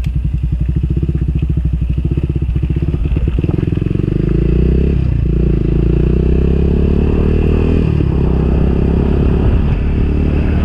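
Motorcycle engine idling with an even putter, then pulling away about four seconds in, its pitch rising slowly until it eases off near eight seconds.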